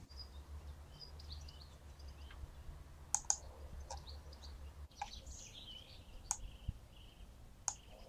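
Faint birdsong from small birds in the hedgerows, short chirps scattered throughout, with a few sharp clicks. A low steady hum underneath stops about five seconds in.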